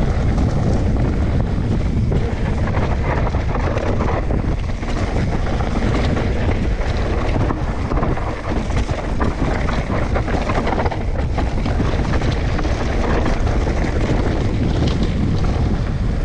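Wind buffeting the microphone: a steady, loud rumble and rush with no clear tones.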